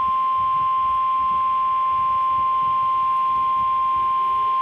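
NOAA Weather Radio 1050 Hz warning alarm tone: one steady, loud single-pitch tone heard through a weather radio receiver with faint static beneath. It signals that a warning message follows.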